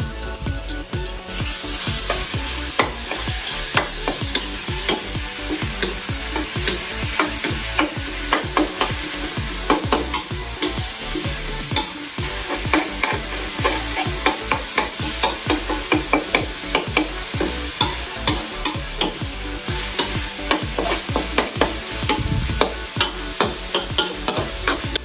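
Spatula scraping and clacking rapidly against a steel wok, stir-frying minced pork for nam phrik ong over a steady sizzle.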